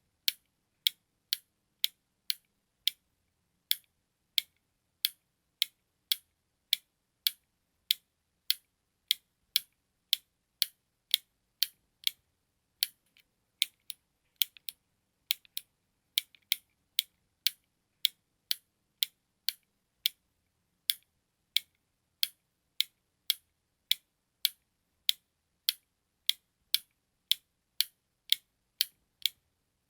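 Button clicks, pressed over and over: short, sharp, high clicks at roughly two a second, unevenly spaced, with silence between.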